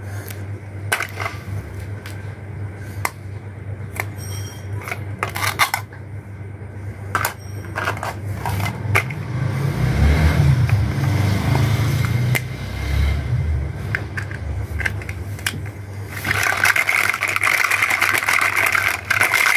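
Hollow plastic toy fruit and vegetable pieces clicking and knocking together as they are picked up and put into a plastic basket, over a steady low hum. Over the last few seconds a denser, continuous scraping noise joins in.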